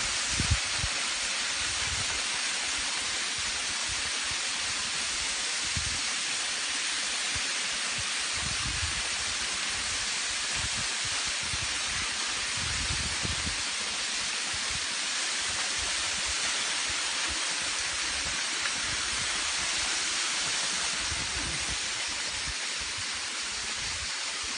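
Waterfall on Gökçeada rushing as a steady, even hiss, with a few brief low rumbles underneath.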